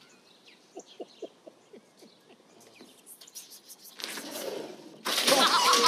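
A man chuckling softly in short, quiet pulses, then, about five seconds in, loud laughter from several people.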